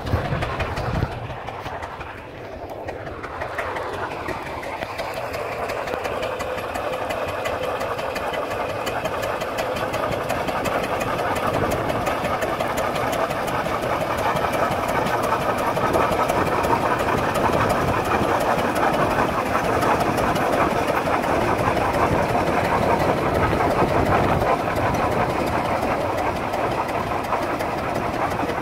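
Case 20-40 tractor's two-cylinder engine running under load as it pulls a six-bottom plow, steady throughout and growing louder over the first dozen seconds.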